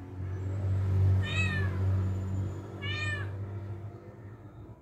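A cat mewing twice, two short high mews about a second and a half apart, over a low steady hum that is loudest in the first half.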